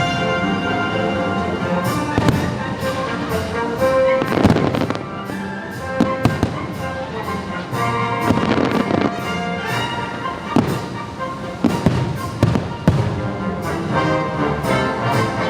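Fireworks bursting with sharp bangs again and again over an orchestral show soundtrack, with longer crackling bursts about four and eight seconds in.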